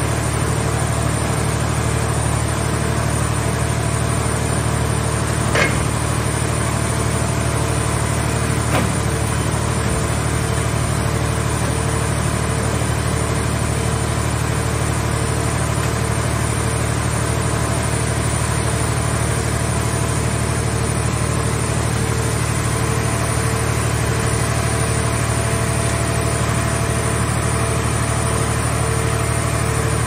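Hydraulic scrap-car baler and its grab crane running with a steady low machine hum while the grab lifts and swings crushed car scrap. Two short metal clanks come about six and nine seconds in.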